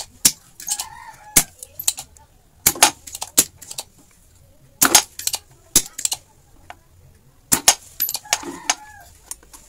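Sharp, irregular clicks and knocks of tools and hands on a TV circuit board during soldering work. A short pitched call, like a bird, is heard twice in the background: about a second in and near the end.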